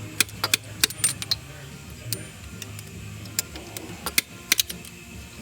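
Sharp metallic clicks and clinks of hand tools on the engine while the fuel injectors are worked loose, a quick run of them in the first second and a half, then a few scattered clicks, over a steady low hum.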